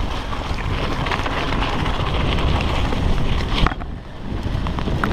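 Wind rushing over a chest-mounted GoPro's microphone as a mountain bike rides along a dirt trail, with a low tyre rumble and scattered rattling clicks from the bike. The noise drops off briefly about four seconds in, then picks up again.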